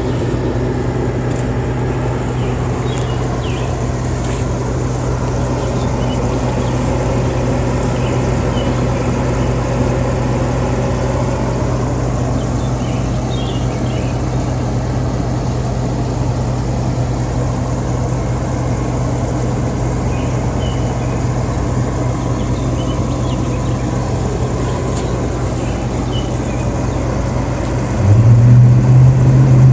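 A motor running with a steady low hum; it gets louder near the end.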